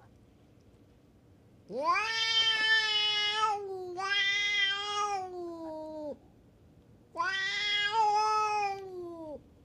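Cat giving three long, drawn-out yowls, each about two seconds long and sliding down in pitch at its end; the first two come close together and the third follows after a short pause. This caterwauling is a threat call in a standoff between two stray cats.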